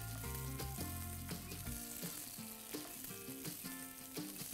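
Pasta-and-egg fritters sizzling in a little oil in a non-stick frying pan on a low flame, under background music whose bass line drops out about two seconds in.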